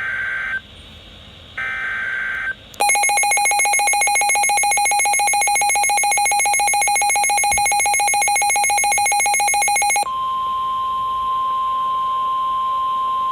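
Weather radio emergency alert: two short bursts of the digital SAME header screech, then about seven seconds of a loud, rapidly pulsing electronic alarm tone, then a steady single tone, the 1050 Hz warning alarm tone, for about three seconds. This is the start of a new warning broadcast.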